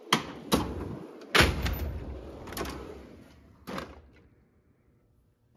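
Steel Snap-on toolbox drawers being slid shut and pulled open, with a series of metal clunks and a rolling rumble from the drawer slides. The loudest clunk comes about a second and a half in, and a last one comes near four seconds.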